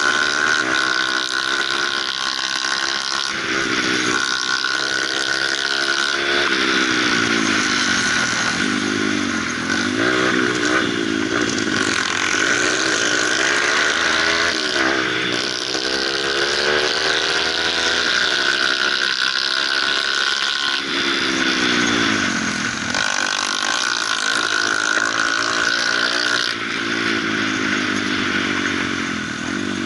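Kawasaki KLX150 dirt bike's single-cylinder four-stroke engine, heard from on the bike, revving up and dropping back over and over as it runs through the gears. A steady high whine and wind rush over the microphone run alongside.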